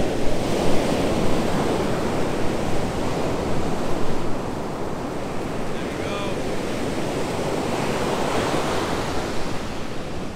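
Ocean surf breaking and washing up a beach, a steady rushing with swells in level, with wind buffeting the microphone.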